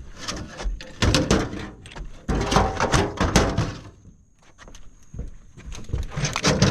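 A freshly shot spotted gar thrashing in the boat: a run of irregular thumps and knocks as the fish beats against the hull and deck.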